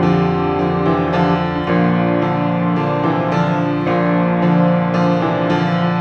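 Background music of sustained keyboard notes and chords, with new notes coming in every half second or so.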